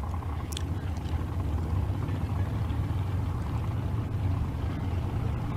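Drag-racing dragster engines idling at the starting line, a steady low rumble.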